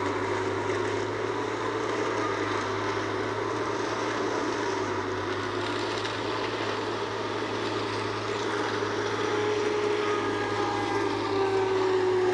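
Forage harvesters chopping standing corn for silage: a steady machinery drone with a held whine, getting a little louder about nine seconds in.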